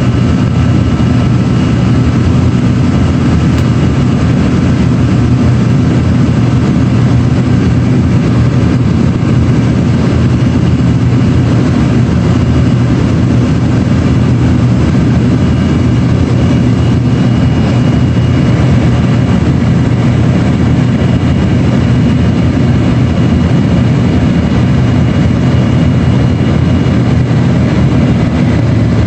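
Steady cabin noise of an Embraer ERJ-135 regional jet climbing out after takeoff: an even, loud rush of engine and airflow with a faint steady whine on top.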